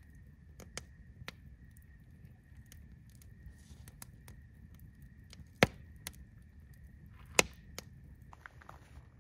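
Wood campfire crackling, with scattered small snaps and two loud pops a little under two seconds apart past the middle.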